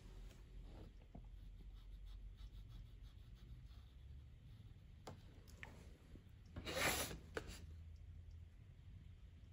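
Faint brush strokes on watercolour paper, then about seven seconds in a short scraping rush as the sheet of paper is turned on the wooden desk.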